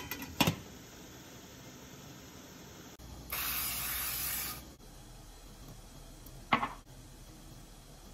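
A glass lid clinks twice onto a stainless steel steamer pot. About three seconds in, a short steady hiss of cooking-oil spray onto an empty nonstick frying pan lasts about a second and a half, followed a couple of seconds later by a single light knock.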